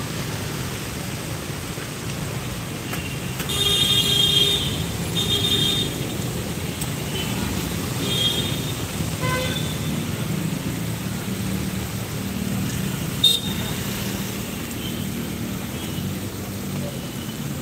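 Slow road traffic of cars and scooters moving through a flooded street, a steady low rumble of engines and tyres. Car horns toot several times in the first half, the longest about four seconds in, and a sharp click comes near the end.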